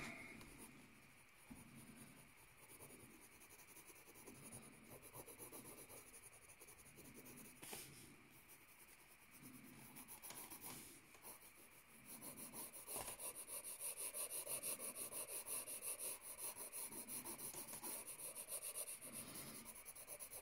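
Graphite pencil shading on notebook paper: rapid repeated scratching strokes, faint at first and louder a little past halfway.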